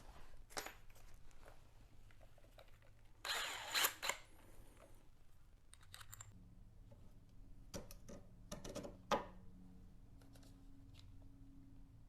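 Cordless drill/driver running steadily at low speed for about five seconds, driving a screw through a painter's bracket into a pre-drilled hole in a door, with a few sharp clicks during the run. A short rustle of handling comes before it.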